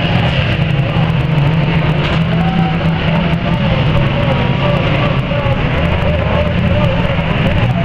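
Engines of several banger racing cars running together in a race, a loud steady drone with engine notes wavering up and down as the drivers rev.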